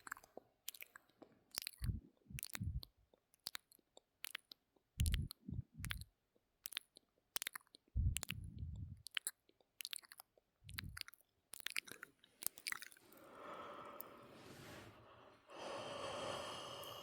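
ASMR mouth sounds close to the microphone: quick wet clicks and smacks of tongue and lips, with a low thump about every three seconds. Near the end these give way to a long drawn-out breath.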